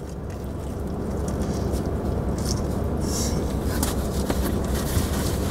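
Steady low rumble of a parked car running, heard from inside the cabin; it grows a little louder over the first two seconds. A few faint crunches of someone biting and chewing a pizza slice come through about halfway.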